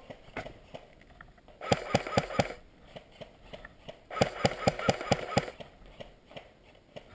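Airsoft electric rifle firing two short full-auto bursts of about five shots a second, the gearbox whirring under the shots. The first burst comes about 2 s in and the second, slightly longer, about 4 s in.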